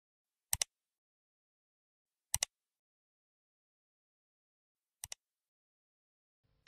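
Computer mouse-click sound effect, heard three times: about half a second in, about two and a half seconds in, and just after five seconds. Each is a quick double click, press then release, with dead silence in between.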